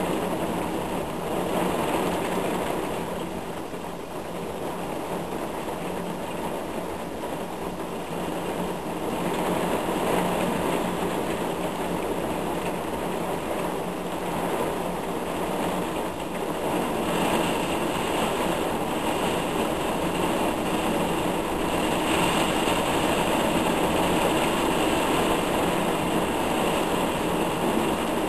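Heavy thunderstorm rain pouring down, a steady dense hiss that eases slightly a few seconds in and builds again toward the end.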